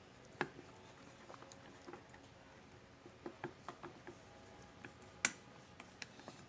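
Faint, irregular clicks of a utensil tapping a bowl while stirring raw duck egg mixed with fish roe, with one sharper click about five seconds in.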